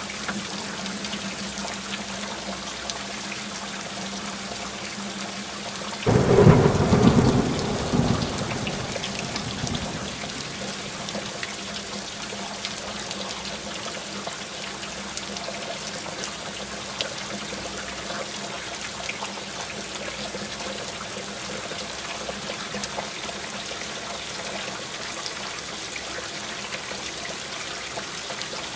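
Steady rain falling, with a clap of thunder about six seconds in that rumbles and dies away over the next few seconds; the thunder is the loudest thing.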